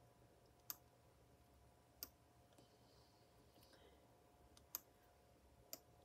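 Four single computer mouse clicks, spaced a second or more apart, over near silence with a faint steady hum.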